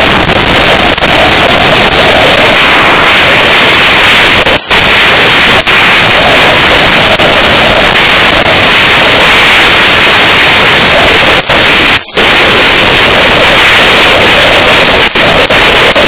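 Wind rushing over a Drift Ghost HD action camera's microphone on a moving motorcycle: a loud, steady hiss that drowns out everything else. The sound cuts out briefly twice, about four and a half seconds in and about twelve seconds in.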